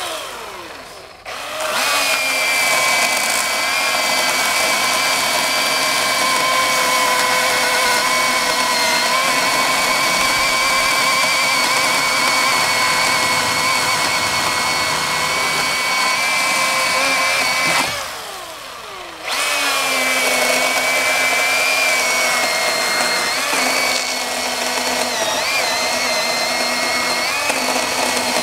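Battery-powered electric chainsaw cutting through a log, its motor giving a steady whine. Twice the trigger is let off and the motor winds down in a falling pitch, just after the start and about two-thirds of the way through, then it spins straight back up and cuts on.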